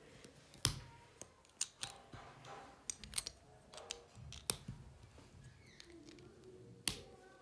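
Plastic Lego bricks clicking and knocking as they are pressed onto a stack by hand: a handful of sharp clicks, the strongest about a second in and near the end, with softer ticks between.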